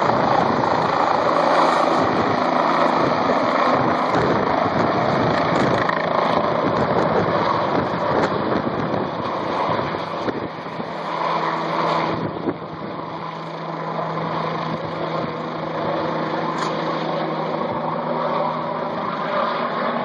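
Air ambulance helicopter lifting off and climbing away, its rotor and engine running with a steady, loud sound that grows somewhat fainter about halfway through as it gains distance.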